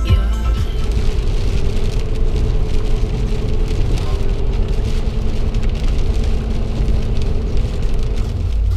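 Rain on the windshield and wet-road tyre noise heard inside a pickup truck's cab while driving on a highway: a steady rushing hiss over a low, even hum.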